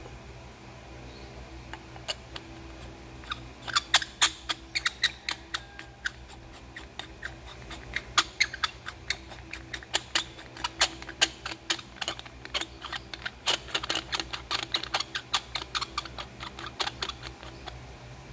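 Threaded metal suppressor tube sections being screwed together by hand: a run of small, irregular clicks and ticks from the threads and the handling, starting about two seconds in and stopping near the end.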